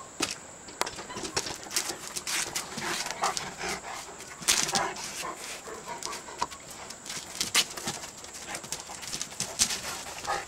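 Two Anatolian Shepherd dogs play-fighting: claws clicking and scuffling on concrete, with short growls and grunts as they mouth each other. There are many sharp clicks throughout and a few louder bursts.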